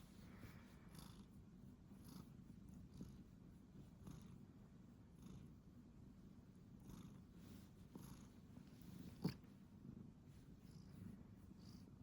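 A domestic cat purring faintly and steadily, swelling with each breath about once a second. About nine seconds in, a single short, sharp sound stands out above the purr.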